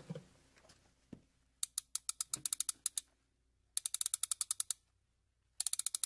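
Rapid mechanical clicking in three short runs of about ten clicks a second, with gaps between them.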